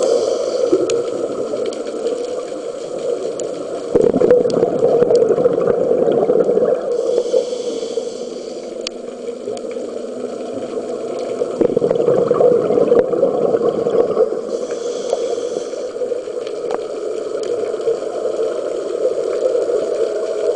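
Muffled underwater sound through a camera's housing: a steady low rush of water, broken twice, about seven seconds apart, by a hissing burst of scuba exhaust bubbles.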